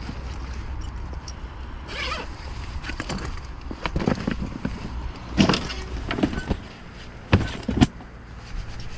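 Handling noise of fishing gear on a boat deck: rustling of a fabric fish bag as a caught pike is packed into it, with several sharp knocks and clunks, the loudest two a little before the end. A steady low rumble runs underneath.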